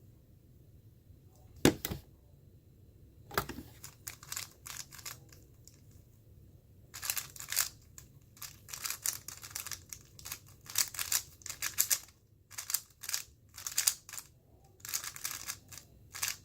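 Moyu Weilong GTS2M 3x3 speedcube being turned fast in a speedsolve: flurries of quick plastic clicking and clacking from the layer turns, getting denser about halfway through. Two single sharp knocks come in the first few seconds.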